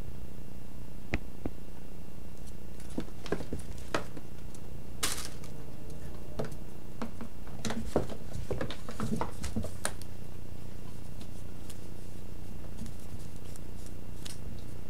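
Cat playing with a feather wand toy: scattered light taps, knocks and rustles as it bats at the toy against rattan furniture and a wooden floor, with a short scraping rustle about five seconds in and a busier run of taps a little later. A steady low hum runs underneath.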